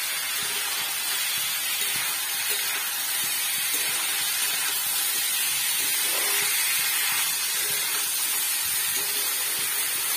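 Split lentils and vegetables sizzling as they fry in oil in a steel kadai while being stirred with a metal spatula, a steady hiss.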